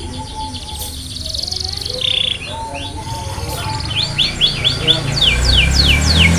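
Canary song: high trills, then a fast run of sharp repeated sweeping notes in the second half, about five or six a second. A low rumble builds underneath in the second half.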